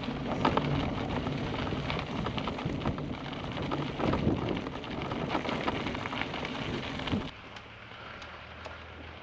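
Wind buffeting and rolling noise of bicycles in motion, a rough, crackling rush with scattered clicks and rattles, which drops away suddenly about seven seconds in to a quieter low hum.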